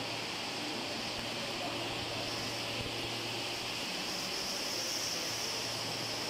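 Steady hiss of a train-wash installation's water spray, with a low hum underneath that fades about four seconds in, as a Lastochka (Siemens Desiro RUS) electric train rolls slowly into the wash.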